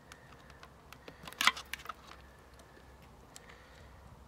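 Screwdriver clicking and scraping against a grease-packed CV joint as the driveshaft and its circlip are worked into place. Scattered light ticks, with one louder clatter of clicks about a second and a half in.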